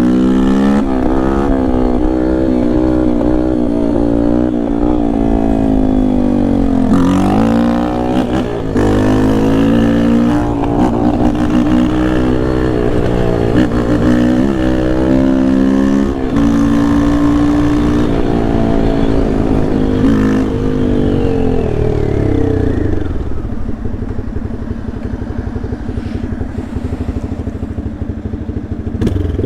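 Yamaha Lander 250's single-cylinder four-stroke engine pulling hard under ride-along acceleration, its pitch rising through the revs and dropping at gear changes about 7, 16 and 20 seconds in. After about 22 seconds the revs fall away as the bike slows, running lower and rougher.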